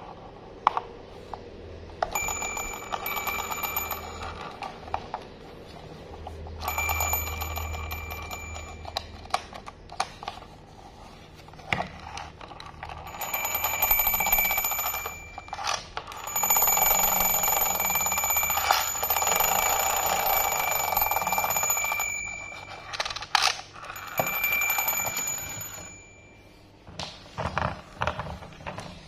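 Battery-operated plastic toy locomotive giving off its electronic sound effect: a steady high tone over a buzzing whir, in five bursts of two to six seconds, the longest in the second half. Sharp plastic clicks from handling the toy come between the bursts.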